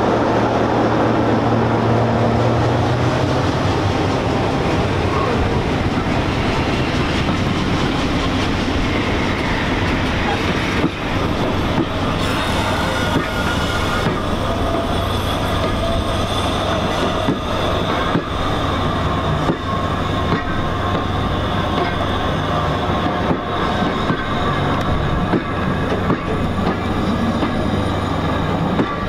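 BR Class 33 diesel locomotive, with its Sulzer eight-cylinder engine, running past, its engine note dying away over the first few seconds. A train of vintage compartment carriages follows, rolling by with wheels clicking over the rail joints and some high wheel squeal in the second half.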